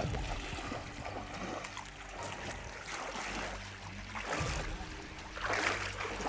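Legs wading through knee-deep seawater over a coral reef flat, sloshing and splashing, with a few louder surges of splash as steps push through the water.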